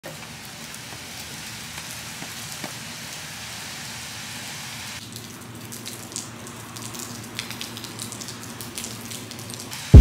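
Rain falling on pavement, a steady even hiss. About halfway through it turns quieter, with scattered individual drips and patters.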